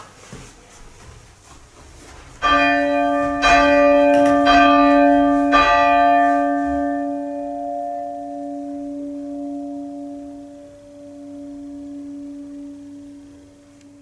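A church bell chimed while hanging mouth-down: the clapper strikes it four times about a second apart, then the bell's hum dies away slowly over several seconds.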